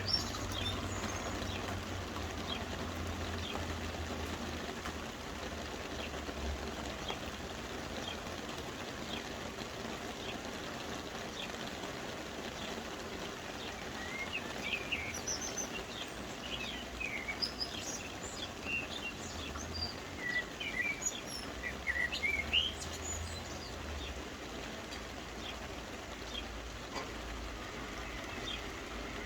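Soft, steady rain falling, with small birds chirping over it. The chirps are busiest from about halfway through to about three-quarters of the way in.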